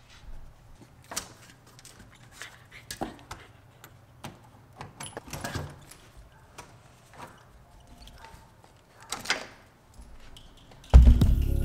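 Scattered light clicks and jingles from a Shiba Inu puppy's leash and collar hardware and its claws on a tile floor, then a door latch clicking and the door opening. Loud music starts suddenly near the end.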